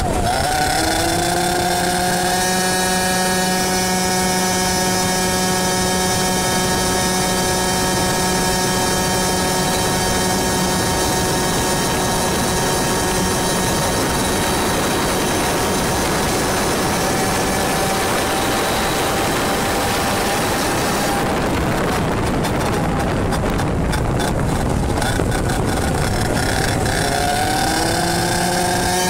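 100cc two-stroke laydown kart engine running at high revs, heard from on board the kart. The pitch climbs in the first second as it accelerates, holds steady, and climbs again near the end.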